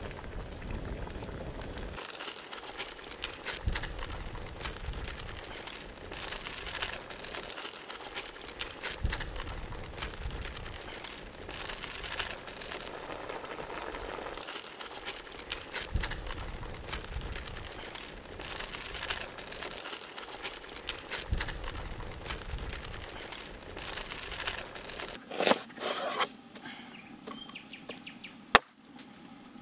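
A pot of chicken and vegetable stew cooking, with a steady crackle and sizzle of many small pops. Near the end come two sharp knocks as a knife blade is pressed down to crush a garlic bulb on a wooden board, the second the loudest.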